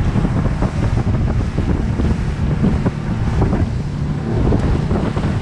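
Small fishing boat running fast through choppy harbour water: heavy wind buffeting on the microphone over the boat's motor, with the hull slapping the chop and spray hitting at irregular moments.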